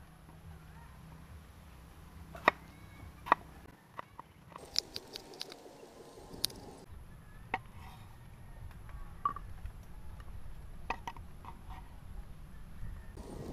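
Chef's knife dicing a tomato on a wooden cutting board: a dozen or so irregular sharp taps of the blade striking the board, the loudest a few seconds in.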